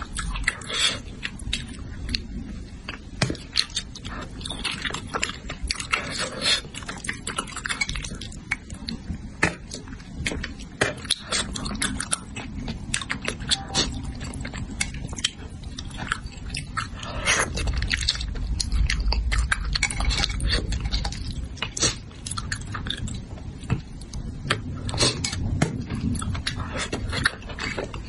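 Close-miked chewing and lip-smacking while eating spicy braised fish: a dense run of wet smacks and small clicks, with a heavier low rumble about two-thirds of the way through.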